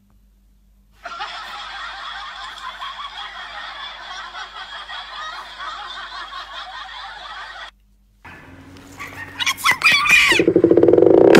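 Canned laughter: a crowd of people laughing together, starting about a second in and cutting off abruptly a little past halfway. Near the end, louder electronic music starts.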